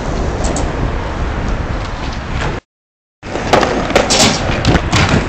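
Skateboard rolling on smooth concrete with a steady wheel rumble. The sound cuts out for about half a second, then several sharp clacks and knocks follow as the board pops and strikes a concrete ledge.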